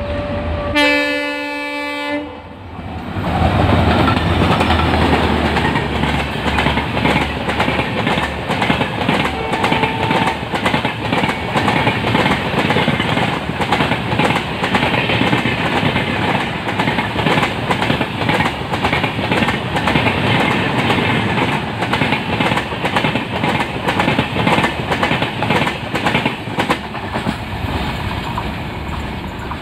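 An Indian Railways WDP4D diesel locomotive sounds its horn once, for about a second and a half, as it runs through the station without stopping. The engine then passes, followed by a long Rajdhani rake whose wheels clatter fast and steadily over the rail joints at speed.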